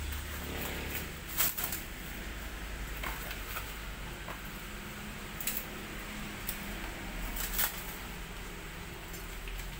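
Protective plastic and foam wrapping being pulled off a bicycle frame: crinkling and rustling, with a handful of sharp clicks and taps as the frame is handled, over a steady low hum.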